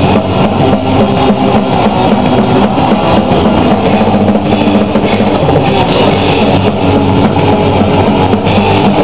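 A rock band playing live and loud, the drum kit to the fore, with cymbal crashes about four seconds in and again near the end.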